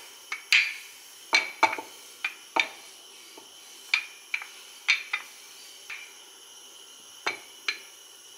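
Wooden rolling pin knocking against a hard countertop while rolling out dough: about a dozen sharp, irregular taps and clacks, the last pair near the end as the pin is set down.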